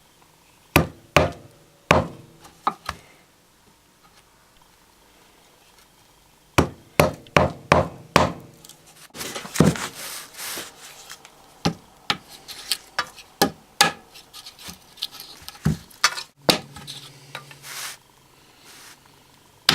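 Hammer knocks on wood, in short runs of sharp blows, with scraping and rubbing of wood in between: waste wood being knocked and worked out of a saw-cut lip.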